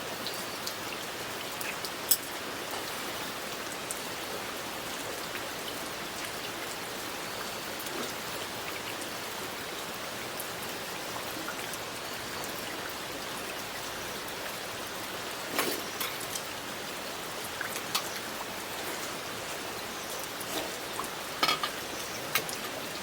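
Steady rain falling, with a few sharp clicks and knocks, the first about two seconds in and the rest grouped near the end.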